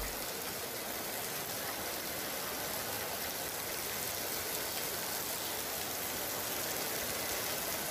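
Heavy rain falling in a steady downpour, an even hiss with no break.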